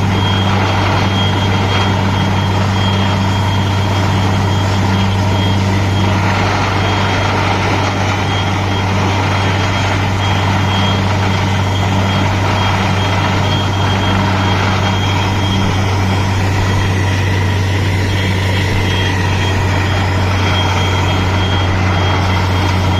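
Borewell drilling machine running steadily: a loud, constant low engine drone with a thin, steady high whine above it.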